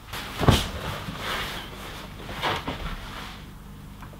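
A loud thump about half a second in, followed by two rustling, scraping noises, then only a low steady background.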